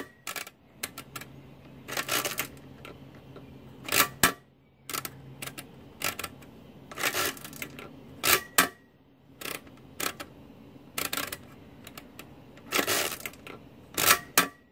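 Marchant XL mechanical calculator with a modified pinwheel mechanism worked by hand: number-setting levers clicked into place and the crank turned to add, giving a series of short bursts of clicking and clattering every second or two.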